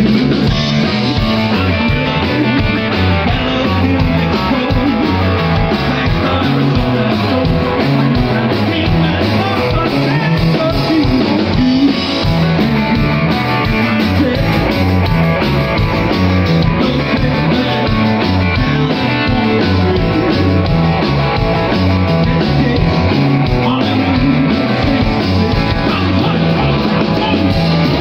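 A live rock band playing loud rock and roll: electric guitar over a Yamaha drum kit, with a singer.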